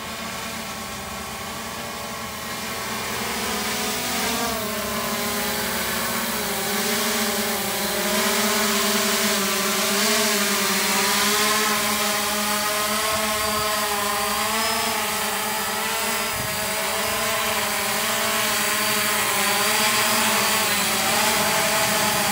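Multirotor drone's propellers buzzing as it comes down to land, louder as it draws near, the pitch wavering up and down as the motors adjust speed.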